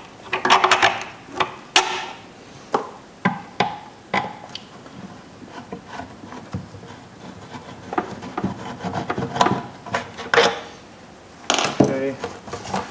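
Phillips screwdriver backing a screw out of a plastic headlight assembly, with scattered clicks and short scraping sounds as the plastic housing and parking light are handled.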